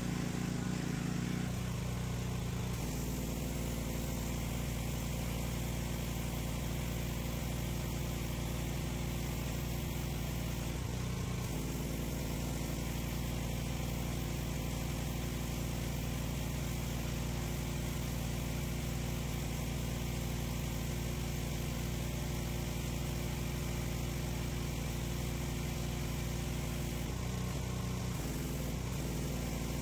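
Pressure washer engine running steadily under load, with the hiss of the high-pressure water jet on concrete. The engine's pitch dips briefly twice.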